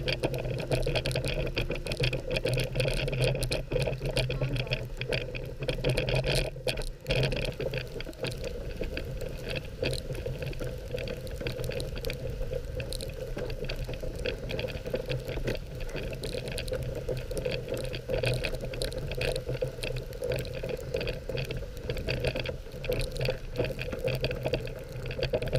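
Dog sled runners sliding and scraping over snow, a steady rushing noise thick with small rattles and clicks from the sled, briefly easing about seven seconds in.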